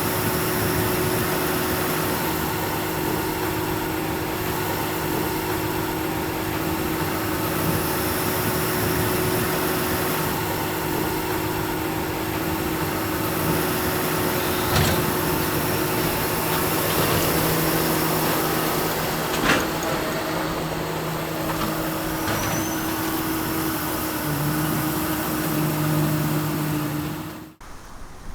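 Tractor and Vermeer 604S Premium round baler running steadily while baling alfalfa, with a steady engine hum and a couple of sharp clicks or knocks from the machinery around the middle. The sound cuts off suddenly near the end.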